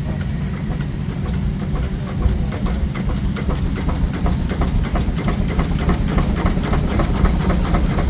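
Steam engine powering a sawmill, running with fast, even exhaust chuffs over a steady low rumble and hiss. The chuffs grow quicker and more regular about three seconds in.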